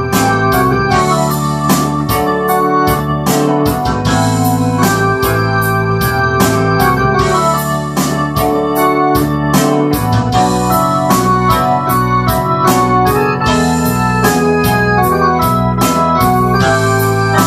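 Ensoniq SD-1 synthesizer keyboard played in an organ-like sound: sustained chords over a moving bass line with a steady beat.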